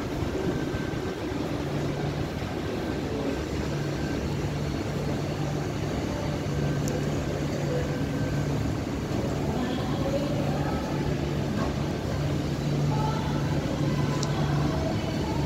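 Indoor hall ambience: a steady low hum over an even background noise, with faint distant voices in the last few seconds.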